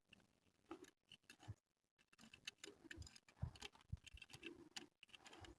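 Near silence with faint, irregular metal clicks and ticks: small hardware, a lock washer and nut, being handled and fitted by hand onto the horn's mounting bracket bolt.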